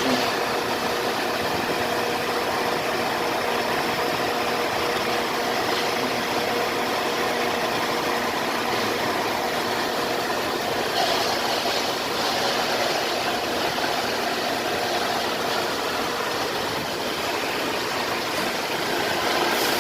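Car engine running steadily, a continuous even noise with a constant hum.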